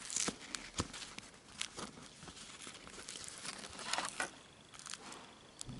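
Handling noise from a black Nike Special Field Air Force 1 high-top sneaker being turned in the hands close to the microphone: scattered rustles, crinkles and soft clicks of the shoe's material and laces, busiest about four seconds in.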